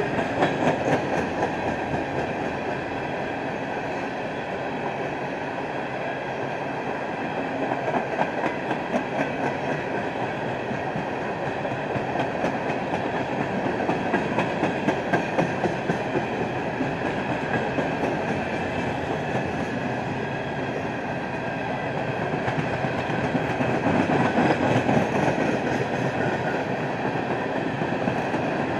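Empty coal cars of a freight train rolling past: a steady rumble of steel wheels on rail, with spells of louder clickety-clack from the wheels crossing rail joints.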